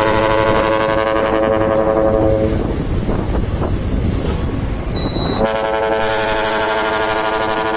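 Dump truck's multi-trumpet air horn sounding a long held chord that stops about two and a half seconds in, leaving the truck's engine rumble, then blasts the same chord again about five and a half seconds in.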